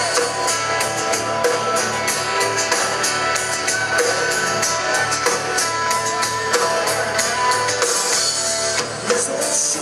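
Live rock band playing an instrumental passage between sung lines: electric and acoustic guitars over bass and drums, with a steady beat.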